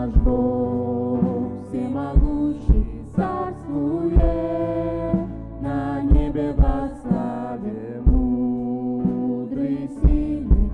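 Live worship band music with sung vocal lines over sustained chords and low drum hits.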